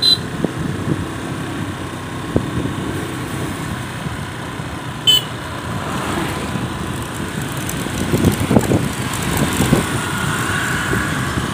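A motor scooter being ridden along: steady engine and road noise, with a brief sharp click about five seconds in.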